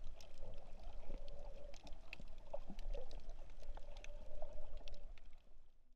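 Underwater sound picked up by a camera below the surface over a shallow coral reef: a low rumble with a steady hum and scattered sharp clicks and crackles. It cuts off suddenly at the very end.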